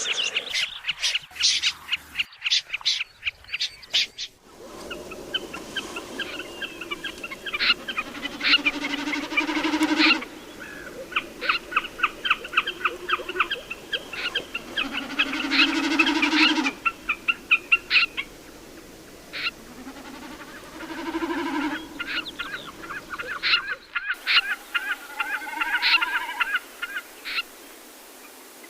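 A recording of migratory bird calls made to lure birds into nets at night. It is a dense, rapid series of sharp, repeated calls made of several spliced sections, with a lower honking call that swells in and fades several times.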